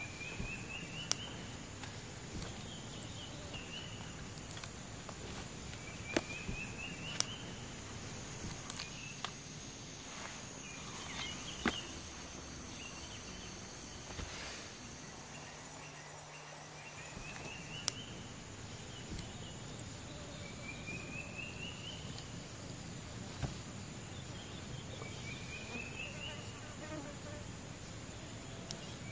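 Forest ambience: a steady high insect drone, and a bird's short rising trill of quick notes repeated about every five seconds. A few sharp light clicks from camping gear being handled.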